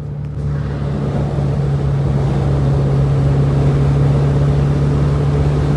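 Renault Twingo RS engine running at steady revs, one constant engine note that grows a little louder over the first second or so.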